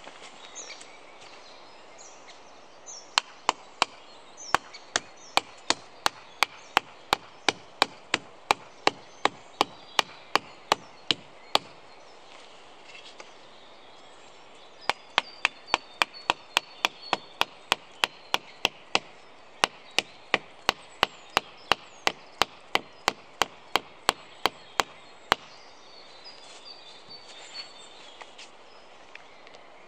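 Sharp wooden knocks at a steady pace of about three a second, in two runs of several seconds each with a pause between, as wooden sticks are struck.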